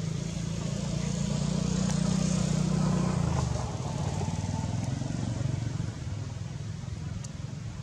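A low engine rumble, loudest over the first few seconds and dropping off about three and a half seconds in.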